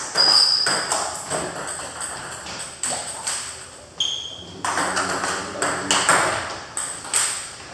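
Table tennis balls clicking off paddles and bouncing on the tables in quick, uneven rallies, several tables playing at once. Two brief high squeaks cut in, one near the start and one about four seconds in.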